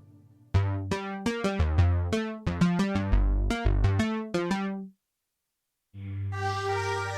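Kurzweil PC3K7 synthesizer playing a quick line of short, struck notes over bass notes; it cuts off suddenly about five seconds in. After a second of silence, a different patch starts with sustained chords.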